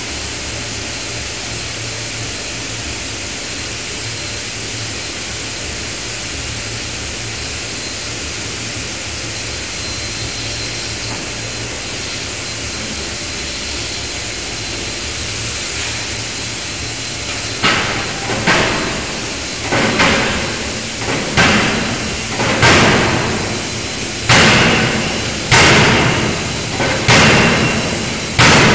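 A 5-ton electro-hydraulic die forging hammer. A steady mechanical hiss and hum runs for a while, then, about two-thirds of the way in, the hammer starts striking in a run of sharp, ringing blows about one a second as the ram forges hot steel in the closed die.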